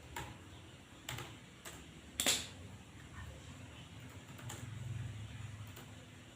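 Sparse, irregular keystrokes on a computer keyboard, about seven clicks, the loudest a little over two seconds in.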